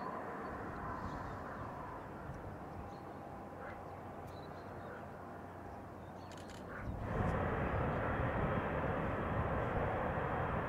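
Boeing 777-300ER's GE90 turbofans at low power while taxiing: a steady rush with a faint whine. About seven seconds in it switches abruptly to much louder, fuller jet engine noise as the engines run up for the takeoff roll.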